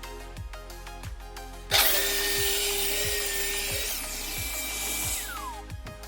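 Background music with a steady beat. About two seconds in, an electric power tool starts suddenly and runs, cutting, for about three seconds while trimming a veneered MDF panel. Its motor then winds down with a falling whine.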